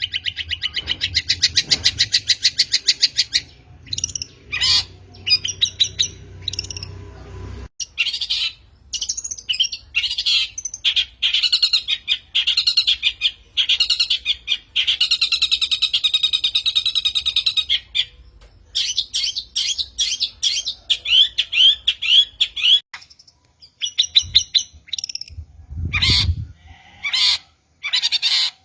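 Long-tailed shrike (cendet) calling: fast runs of sharp, repeated chattering notes and trills, including a series of quick down-slurred notes, broken by short pauses.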